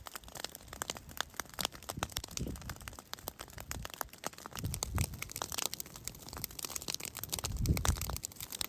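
Burning vegetation in a wildfire: dense, irregular crackling and popping, with a low rumble that swells a few times.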